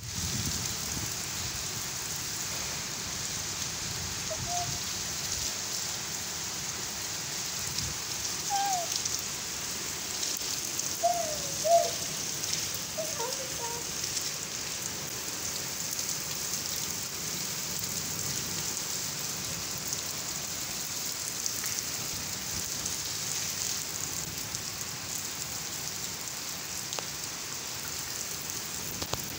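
Steady rain falling on a flat concrete rooftop, an even hiss of drops splashing on the wet concrete. A few short chirps sound in the first half.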